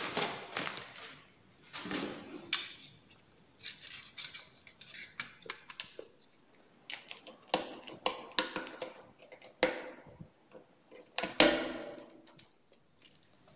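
Irregular plastic clicks and knocks from a modular switch plate and its plug-in modules being handled and fitted, with a screwdriver tapping against the plate. The sharpest knocks come about ten and eleven seconds in.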